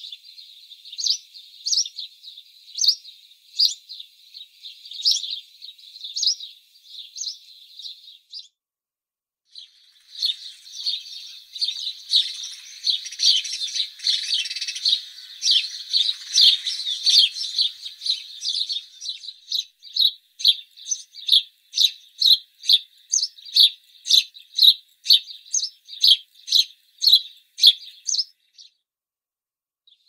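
House sparrows chirping. Single chirps come about once a second, then after a short break comes a dense stretch of overlapping chirps, then a fast run of loud chirps, two or three a second, which stops shortly before the end.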